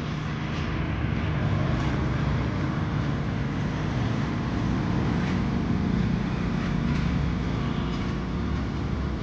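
Road traffic: a motor vehicle's engine running close by, a steady low sound that grows a little louder over the first second or two and holds.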